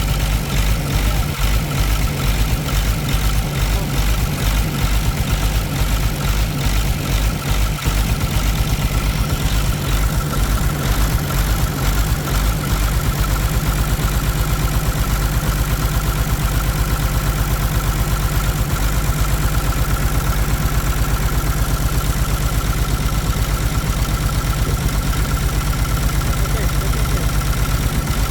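Caterpillar diesel engine idling with a steady low throb. It is uneven for about the first ten seconds, then settles into a regular beat. The engine is being tested for a misfire and heavy smoke.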